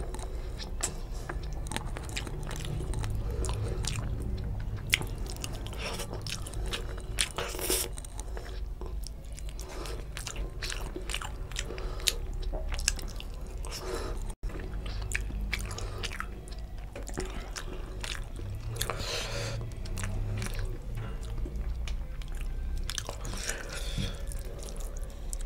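Close-miked chewing and wet mouth smacks of someone eating tilapia curry with rice, in a run of irregular clicks, along with fingers mixing rice into the curry gravy on the plate.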